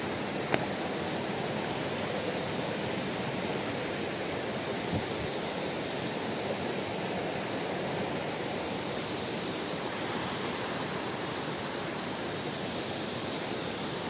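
Steady rush of water from a rocky mountain stream and waterfall. A single sharp click about half a second in.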